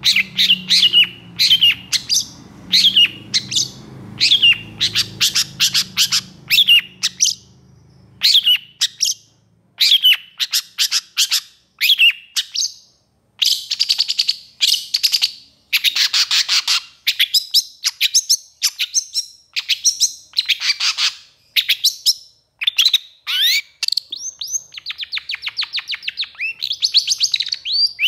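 Long-tailed shrike (pentet) singing agitatedly in long, rapid bursts: runs of sharp, harsh chattering notes several to the second, with buzzy rattles and a fast trill near the end.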